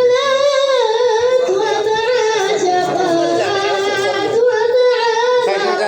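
A boy's unaccompanied high voice singing a devotional sama' chant, drawing out long notes with wavering ornaments.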